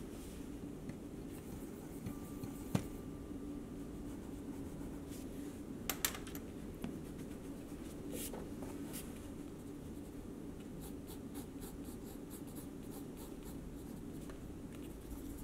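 Pencil lead scratching and sketching on sketchbook paper in short strokes, with a few light sharp taps, over a low steady hum.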